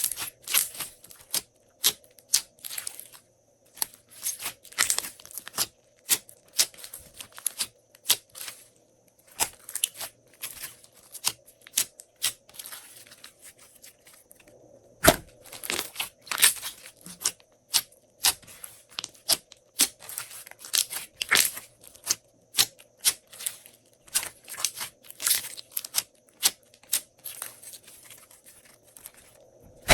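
Glossy slime being squished, pressed and stretched by hand, giving irregular runs of wet crackling and popping clicks, with one sharper thump about halfway through.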